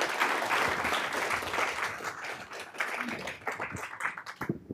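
Audience applauding, a dense patter of many hands clapping that is loudest at first and thins out toward the end.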